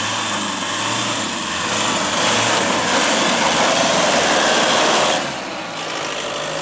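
Isuzu D-Max V-Cross pickup's turbo-diesel engine working under load up a loose dirt climb, with its tyres spinning and scrabbling in the dirt. The noise swells in the middle and eases about five seconds in.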